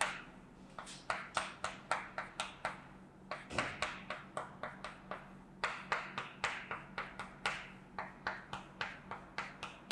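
Chalk on a chalkboard in quick, short strokes, drawing rows of small plus signs: sharp tapping clicks in clusters of several a second, with short pauses between rows. A faint steady low hum lies underneath.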